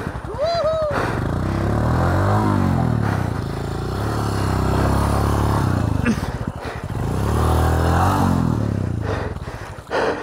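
Motorcycle engine revved hard twice, the pitch climbing and then dropping each time, with a short shout near the start.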